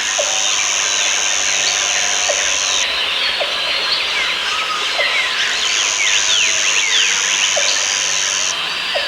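Rainforest ambience: a dense chorus of birds chirping and whistling over a steady hiss. A high, even insect buzz runs for about three seconds, stops, and starts again for another three seconds.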